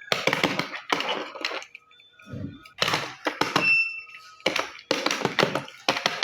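Plastic toy road roller with a battery-free, push-powered drive rattling in about seven short bursts of clicky whirring, each about half a second long, as it is pushed and its drive spins.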